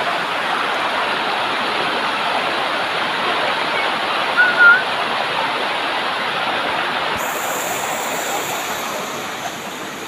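Steady rush of a waterfall and the shallow water cascading over rock below it. A short high-pitched note cuts in about halfway through, and the rush grows slightly quieter near the end.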